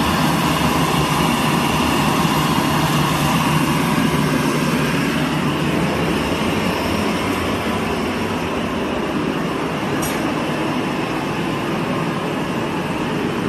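Steady, loud restaurant-kitchen noise, an even rush. Its low rumble eases about halfway through, and a short click comes near the end.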